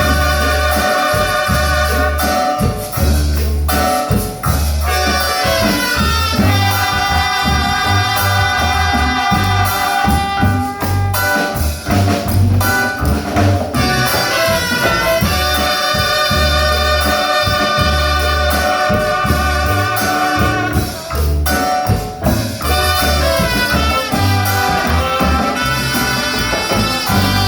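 Instrumental music with a steady pulsing bass and sustained melodic lines that sound like brass or saxophone.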